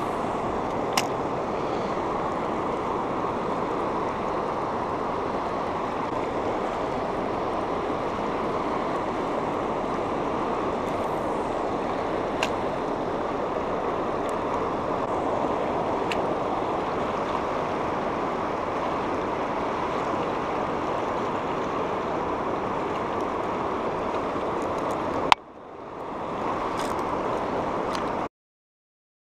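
Fast river current rushing steadily past the bank, with a few faint sharp clicks over it; the sound drops out suddenly near the end.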